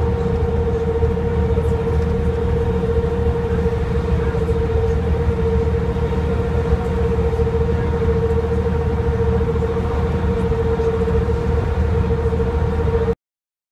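Inside an Ikarus 250.59 coach at steady speed: its rear-mounted six-cylinder diesel and drivetrain droning low, with a steady whine of constant pitch over the rumble. The sound cuts off suddenly near the end.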